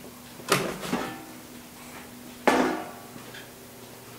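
Metal cookware clanking as it is handled: a sharp clank about half a second in with a lighter knock just after, and another about two seconds later, each ringing briefly.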